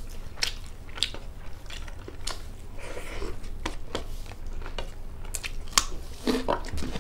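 Close-up chewing and crunching of food eaten by hand, including bites of a raw carrot stick, heard as many irregular crisp mouth clicks.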